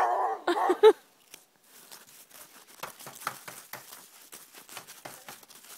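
Quick, irregular crunching and scraping in packed snow, several crunches a second, after a short vocal sound at the very start.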